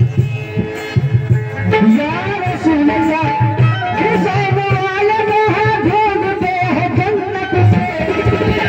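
Qawwali music: a repeating hand-drum beat under held instrumental notes, joined from about two seconds in by a melodic line that glides and wavers in pitch.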